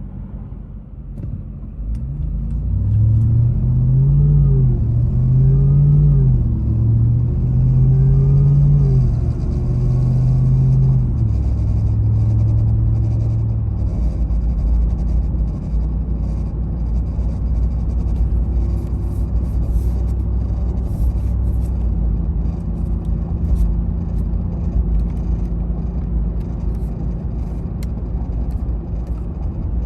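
Ram TRX's supercharged 6.2-litre V8 pulling away from a stop, the engine note climbing and dropping through about four quick upshifts, then settling into a steady cruising drone with road rumble. This is the take-off where the owner hears a strange vibration noise, which seems to come from the dash or the engine bay.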